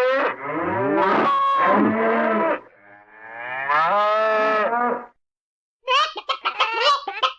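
Animal chattering sound effect: two long, wavering vocal calls that slide up and down in pitch, then after a short pause a fast run of short, choppy chattering calls.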